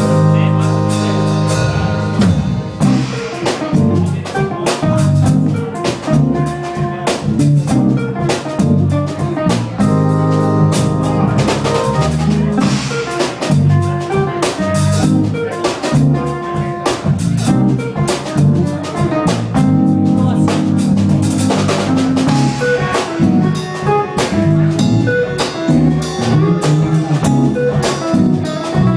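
Band music with a drum kit keeping a steady beat under pitched instruments.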